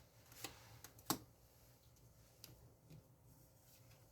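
Near silence with a few faint, separate clicks and taps from tarot cards being handled, the clearest just after one second in.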